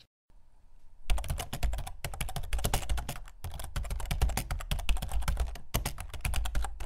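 Hands pressing and squishing glittery slime flat on a mat, starting about a second in: a dense run of small crackling clicks and pops over soft low thuds.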